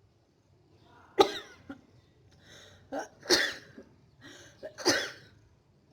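A woman coughing and sneezing: three sharp, explosive bursts about two seconds apart, the last two each preceded by a short voiced intake of breath.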